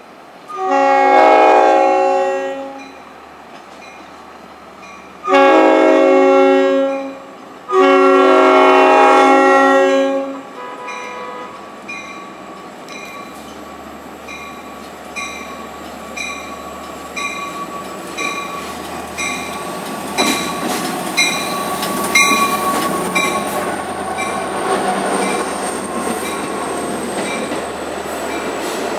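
An EMD DE30AC diesel locomotive's horn sounds three long blasts for a grade crossing. The train then draws up and passes close by, its engine and wheels growing louder, with a steady high whine. A crossing bell dings about once a second through the approach.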